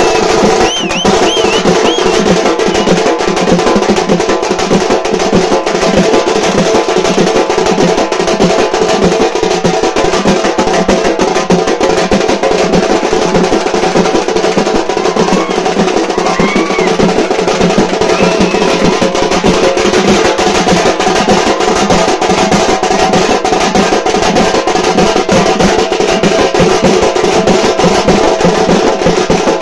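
Loud, fast drumming from a street drum band, a dense rolling beat with no break. A few short high whistle-like chirps sound over it, most of them in the first two seconds.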